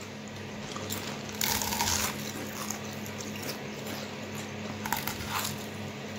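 Potato chips being crunched and eaten, with a louder crinkling burst about a second and a half in and a few small crunches near the end.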